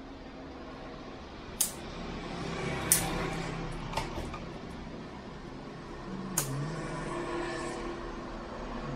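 Four sharp clicks or knocks, a second or more apart, over a low steady hum that grows slightly louder toward the end.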